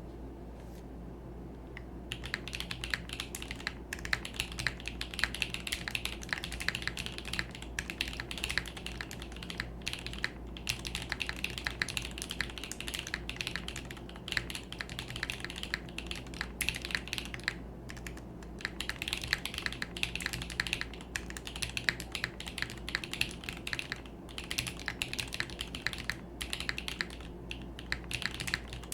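Continuous typing on a Kohaku mechanical keyboard with a carbon fiber plate and factory-lubed Tecsee Rubrehose Brown linear switches. The rapid keystrokes begin about two seconds in and go on with a few short pauses.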